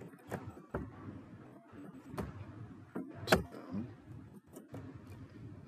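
Computer keyboard keys clicking in irregular keystrokes, with one sharper click about three seconds in.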